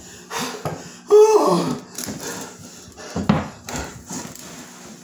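A young man's wordless cry, drawn out and falling in pitch, about a second in, then a short low grunt a couple of seconds later, with rustling movement between.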